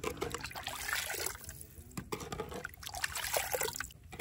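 Hot milk being scooped up with a small clay bowl and poured back into a clay pot, splashing and trickling, with light knocks of the bowl against the pot.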